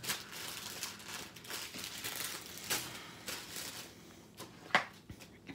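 Crinkling and rustling of a plastic-covered diamond painting canvas being handled, with a few sharp clicks near the end.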